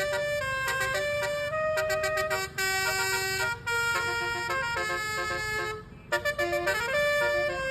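Indonesian bus's basuri musical horn playing a slow melody of held notes, several sounding together as chords, with a brief gap about six seconds in followed by a few quick stuttered notes. A low rumble runs underneath.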